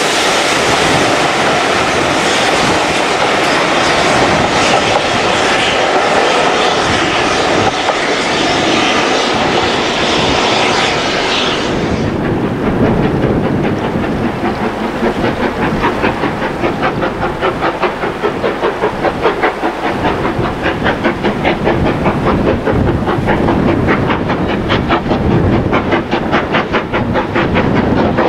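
A steam train passing, its coaches rolling along the rails with a steady rush of noise. About twelve seconds in this gives way to a steam locomotive approaching under load, its exhaust beating in an even rhythm of about three chuffs a second.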